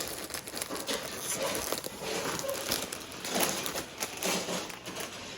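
Plastic packaging being handled, crinkling and rustling irregularly with many small crackles.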